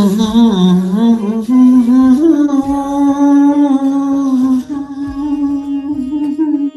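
A voice holding one long sung note over soft devotional background music. Its pitch wavers for the first two seconds, then holds steady, and it stops abruptly near the end.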